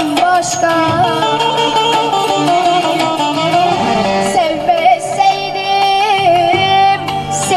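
A Turkish folk song (türkü) with a wavering, held sung melody over plucked-string accompaniment.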